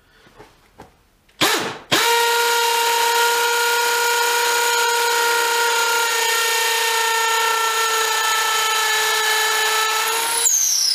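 Makita DTP141 cordless 4-mode impact driver in percussion (hammer-drill) mode, drilling into brick. It gives a short blip, then runs as a steady high whine for about eight seconds, its pitch sagging slightly under load, before stopping near the end.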